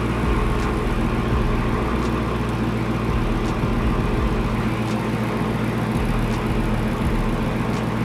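2018 Dodge Challenger SRT Hellcat's supercharged 6.2-litre V8 idling steadily, left running after a jump start to recover its flat battery.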